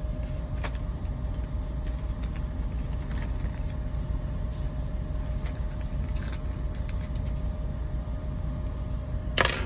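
Steady low background rumble with a faint steady hum, a few faint scattered clicks, and a short, louder burst of noise near the end.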